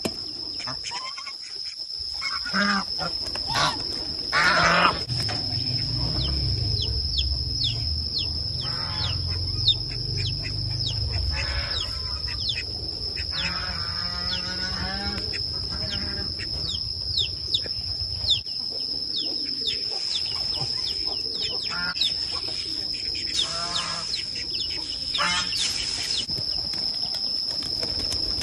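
Farmyard poultry calling: many short falling peeps from young birds, with bursts of ducks quacking about halfway through and again near the end, over a steady high whine.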